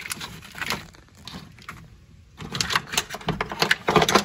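Plastic wiring harness and corrugated wire loom being tugged and worked loose by hand: scattered clicks and scrapes at first, then a louder, busy run of clattering and scraping from about halfway through.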